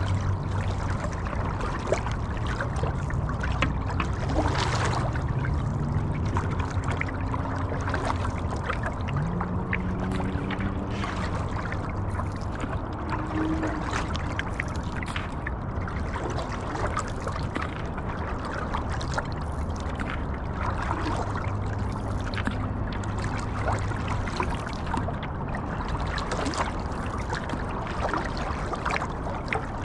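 Paddle strokes in river water from a stand-up paddleboard: continuous splashing and trickling, with many small drips and splashes off the blade.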